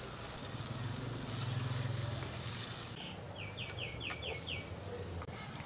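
Masala mixed in water poured into hot oil and fried onions in a clay pot, sizzling for about three seconds. Then the sizzle stops abruptly and a bird calls a quick run of about seven short high notes.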